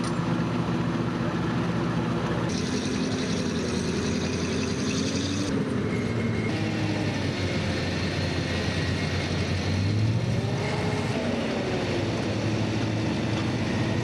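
Heavy eight-wheeled military truck engine of a BM-27 Uragan rocket launcher running steadily. Its pitch rises and falls a few times, and the sound changes abruptly about two and a half seconds in and again around six seconds.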